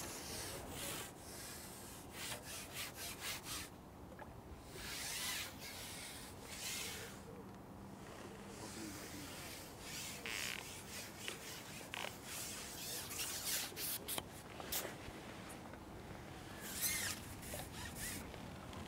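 Faint, irregular rustling and rubbing noise on the microphone, coming in uneven bursts of hiss.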